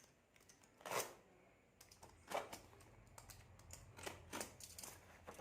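Faint clicks and rustles of a parcel's plastic packaging being handled and opened.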